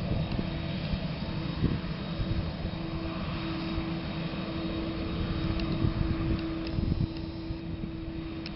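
Engines of a twin-engine widebody jet airliner running at low power as it taxis: a steady drone with one held tone over an uneven low rumble.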